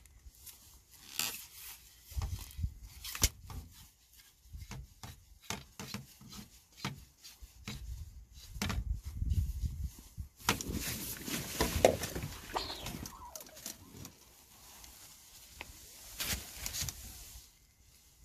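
Irregular handling noises: rustling, scraping and light knocks and clicks. A busier stretch of rustling comes about ten to thirteen seconds in.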